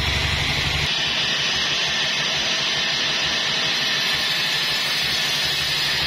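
Band sawmill blade cutting through a log: a steady, loud hissing rasp over the running drive motor. The low hum of the drive drops away abruptly about a second in.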